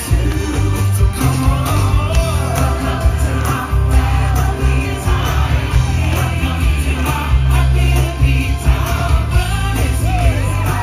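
Upbeat celebration song with singing over a heavy, steady bass beat.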